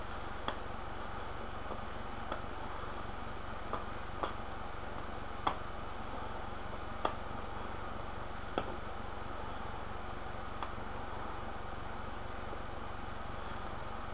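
Pipe smoker puffing on a straight briar pipe: faint, sharp clicks and pops from the lips and stem every second or two, over a steady background hiss.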